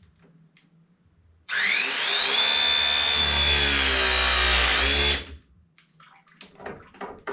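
Battery-powered press tool crimping a copper fitting: its motor whine rises in pitch as it starts, runs steadily for about three and a half seconds, and cuts off after a brief dip and rise in pitch near the end.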